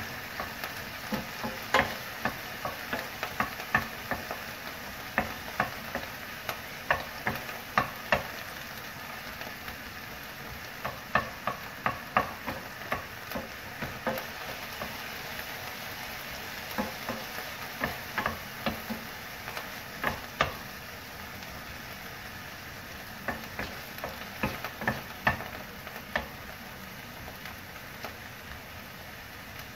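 Minced chicken sizzling as it fries in vegetable oil in a frying pan, stirred with a wooden spatula that knocks and scrapes against the pan in irregular clicks.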